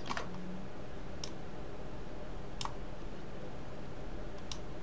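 Four isolated sharp clicks of a computer mouse and keyboard, spaced a second or more apart, over a steady low hum.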